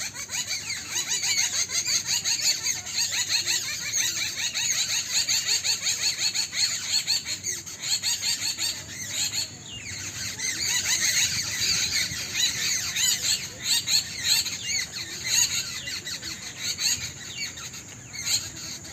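A dense chorus of many small birds chirping and twittering at once, thinning briefly about halfway through.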